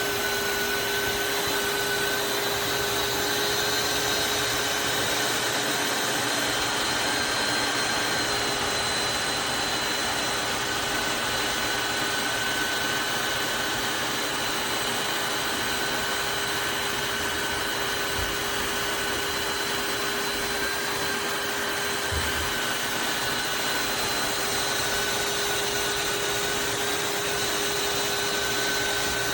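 Tineco Floor ONE S5 Steam wet-dry vacuum mop running steadily: a constant motor drone with a steady whine over the rush of suction airflow.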